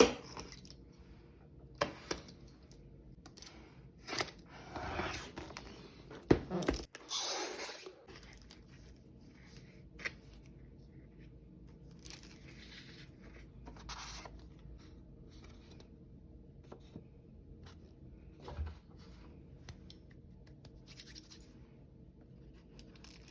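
Packaging torn open by hand: ripping tape and cardboard, with scrapes, clicks and handling knocks. The longest tears come about five and seven seconds in.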